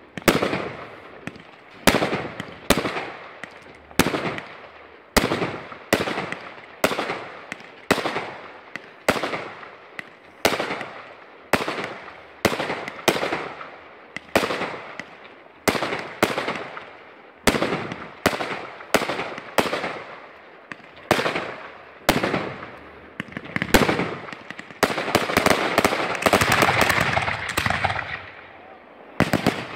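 Aerial fireworks fired in quick succession: a sharp bang about once a second, each trailing off in crackle. Near the end it becomes a dense, rapid run of crackling reports.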